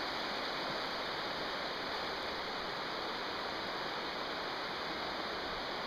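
A shallow, rocky river running steadily over stones in a riffle: an even rushing of water.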